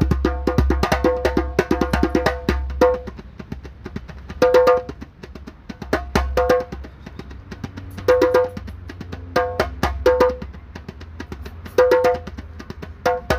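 Loosely tensioned djembe played solo by hand, with ringing strokes. It opens with a fast, dense run for about three seconds, then breaks into short phrases every second or two with pauses between. A steady low engine rumble of a moving city bus runs underneath.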